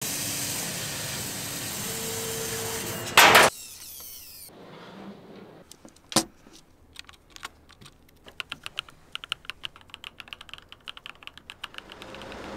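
Steady hiss of a laser cutter working acrylic, broken just after three seconds in by a loud short burst of noise. Then a run of sharp clicks from mechanical keyboard switches being pressed into and on a clear plate, coming quicker toward the end.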